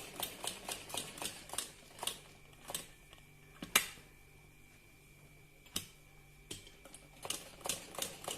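Sewing machine stitching slowly, each stitch a sharp click, about three a second, pausing for a couple of seconds around the middle before stitching on.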